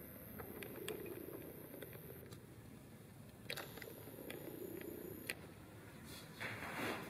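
Faint camera handling noise: a few light clicks, a thin high whine that stops and starts twice, and a brief rustle near the end.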